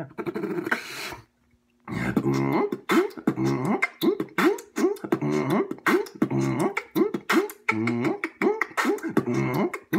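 Mouth beatboxing: after a short breathy noise and a brief pause, a steady beat starts about two seconds in, low hummed bass notes that bend upward about twice a second, mixed with sharp clicks and snare-like hits.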